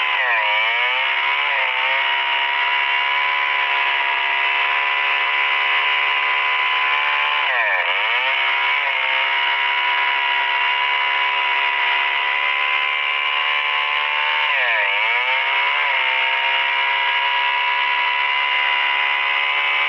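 STIHL 070 two-stroke chainsaw running at high revs while ripping lengthwise through a Merbau log. Its pitch dips and recovers three times, roughly seven seconds apart, as the chain is worked forward and back in the cut.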